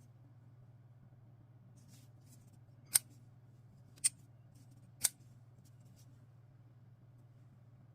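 Vosteed Valkyrie folding pocket knife being worked by hand: three sharp metallic clicks about a second apart, with a few fainter ticks around them, over a steady low hum.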